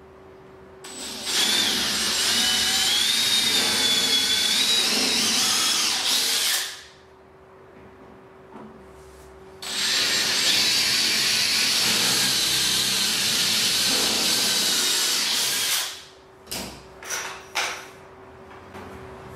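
Cordless drill boring two holes into a laminated chipboard panel. Each run lasts about five to six seconds, with a wavering whine as the bit cuts. A few short knocks follow near the end.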